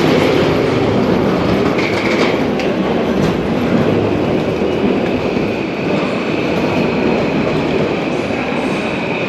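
A train running on the rails with a steady, loud rumble; a high whine comes in briefly about two seconds in and then holds steady from about halfway through.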